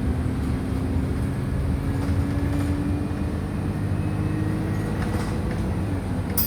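Wright StreetLite DF single-deck bus heard from inside while on the move: the diesel engine and drivetrain hum steadily, the engine note rising slowly as the bus pulls and then dropping about six seconds in. A sharp click comes just before the end.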